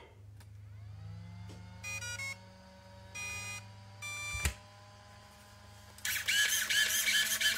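RC car electronics beeping: a rising tone that holds, then three short beeps a second or so apart, as the car powers up and links to the transmitter. A knock follows the last beep, and about six seconds in a loud, rapid chattering starts.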